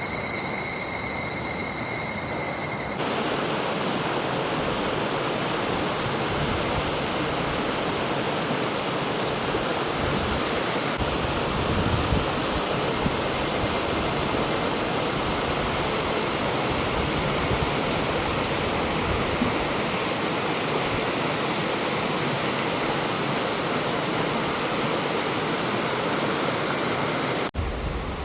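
Clear mountain stream rushing steadily over rocks. Higurashi cicadas call high above it, clearly for the first few seconds and faintly later on.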